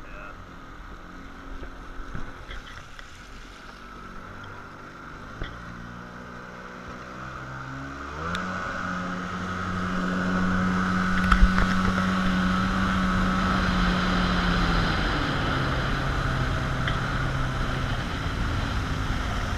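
Jet ski engine running low for several seconds, then revving up about eight seconds in and holding a steady higher pitch with a rushing noise, easing off about fifteen seconds in.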